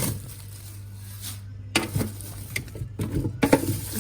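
Knocks and clatters of kitchen items being handled and set down, starting about two seconds in, over a steady low hum.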